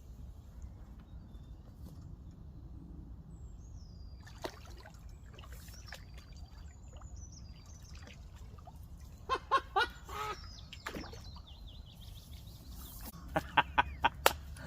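Waterfowl calling: three loud calls about two-thirds of the way through, then a quick run of about five short calls near the end, over a low rumble of wind. Thin high bird whistles come in faintly about halfway through.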